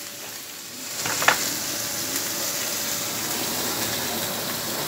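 Food frying in a large pan on a burner, a steady sizzle, with one brief sharp click about a second in.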